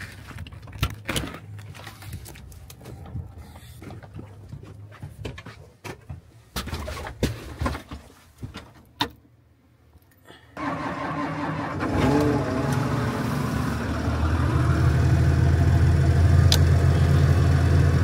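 Snow-covered farm tractor's diesel engine cranked with the key and catching at once on a cold start, then running steadily and rising in speed twice. Before it come scattered scrapes and knocks of snow being brushed off the machine and of climbing into the cab.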